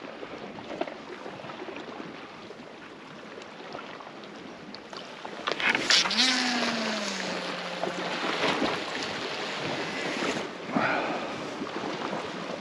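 Steady wash of sea and wind noise on the microphone. Louder rustling handling noise comes twice, about halfway through and again near the end, with a brief low tone that falls in pitch about halfway through.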